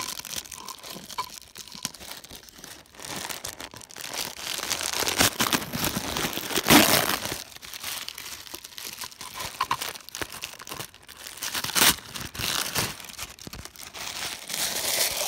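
Wrapping being crinkled and torn off a package by hand, an irregular rustling with sharper tears and crackles, loudest in the middle.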